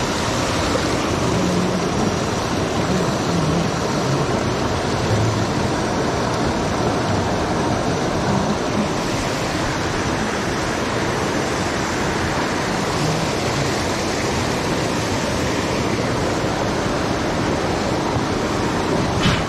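Shallow stream rushing and splashing over rocks: a steady wash of running water. A single short click near the end.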